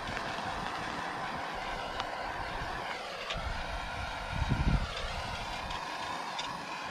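A propane torch burning with a steady rushing noise while it heats the waterline pipe so a fitting can be pushed in. A low thump comes a little past halfway.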